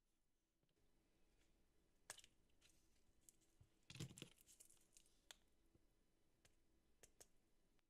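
Faint scattered clicks and light rattles from a clear plastic multi-compartment rhinestone case being handled, with a busy cluster of clicks about four seconds in.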